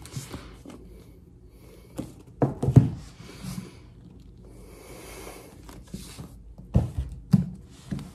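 Hardcover books being handled: dull thumps and knocks as they are picked up and set down, in two clusters, a couple of seconds in and again near the end, with a soft rustle in between.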